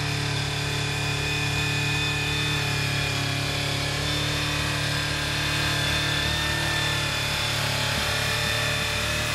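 Honda CBR400RR's inline-four engine idling steadily.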